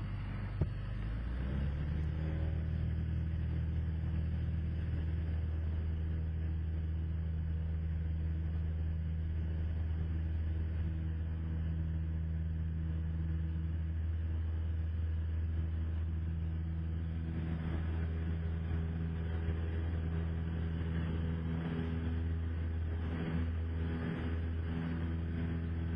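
Cessna 172SP's four-cylinder Lycoming piston engine and propeller coming up to full takeoff power about a second and a half in, then running at a steady drone.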